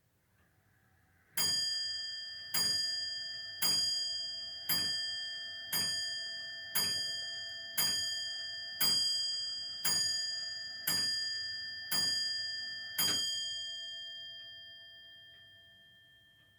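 Grandfather clock striking twelve for noon: twelve ringing bell-like strikes about a second apart, the last one fading slowly away.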